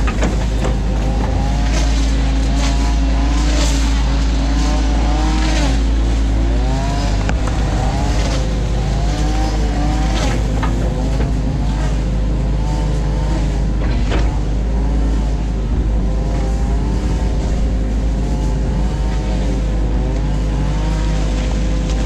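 New Holland Kobelco E50.2 mini excavator heard from its cab: the diesel engine runs steadily under load while the hydraulics whine, rising and falling in pitch as the arm and bucket work. Occasional knocks and scrapes come from the bucket digging silt out of the ditch.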